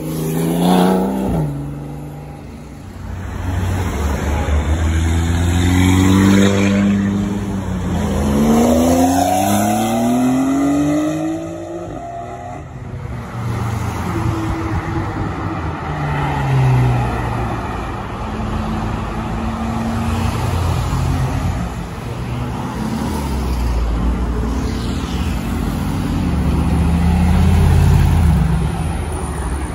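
Sports cars accelerating hard past, a Porsche 911 among them, engines revving up in repeated rising sweeps through their gear changes; several such passes follow one another.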